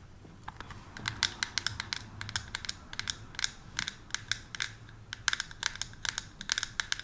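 Fingernails tapping and clicking on hard plastic makeup packaging, a quick irregular run of sharp taps in clusters, several a second.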